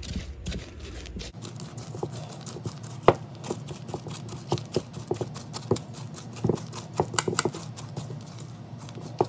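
Thick butter-and-sugar cookie dough being stirred by hand in a bowl: the mixing utensil knocks and scrapes against the bowl in irregular strokes, a few a second, with one sharper knock about three seconds in.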